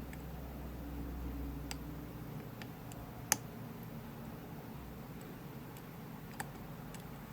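Faint, scattered metallic clicks of a lock pick and tension wrench working the pin stack of a Winkhaus Titan euro cylinder, with one sharper click about three seconds in and another about six seconds in.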